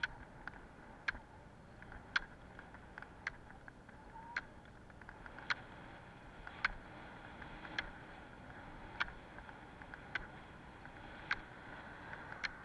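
Roller-ski pole tips striking the asphalt in a steady rhythm, one sharp click about every second, over the continuous rolling noise of the ski wheels on the road.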